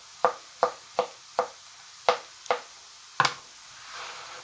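A knife chopping bolete mushrooms on a cutting board: about seven sharp knocks, unevenly spaced, roughly two a second.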